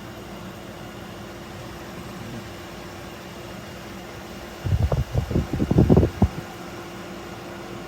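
BLACK+DECKER portable air conditioner running: steady fan noise with a low steady hum. About five seconds in, a cluster of loud low thumps and rumbles lasts about a second and a half.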